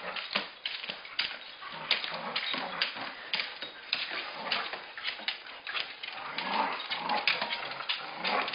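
Dog making noises while tugging at a plush toy in play, with many short clicks and knocks throughout.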